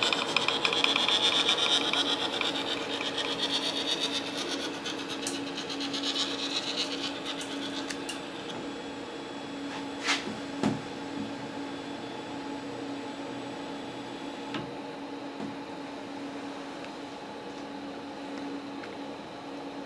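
3D printer working: the stepper motors whine and sweep in pitch as the print head moves, over the steady hum of its cooling fans. About eight seconds in the motor sounds stop, leaving the fans humming, with two sharp clicks soon after.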